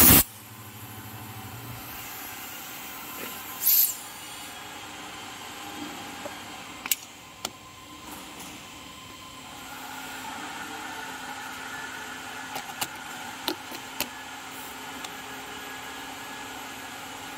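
Steady machine hum, with one short blast of compressed air about four seconds in and several light clicks and taps as the cut PVC board is handled.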